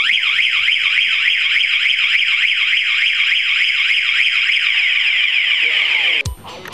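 TONE Security System motorcycle anti-theft alarm siren sounding: a loud electronic tone that warbles, sweeping rapidly up and down about four times a second. It starts abruptly and cuts off suddenly near the end, followed by a couple of short knocks.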